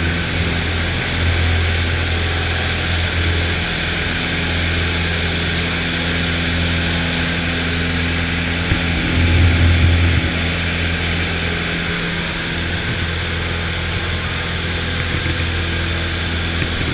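Small single-engine plane's propeller engine running steadily at full power during takeoff and climb, heard inside the cabin as a loud, steady low drone.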